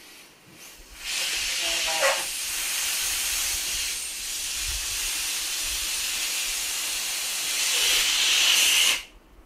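Air hissing out through the neck of a large clear balloon as it is let down. The hiss starts about a second in, runs steadily with a brief louder blip soon after, swells near the end and cuts off suddenly.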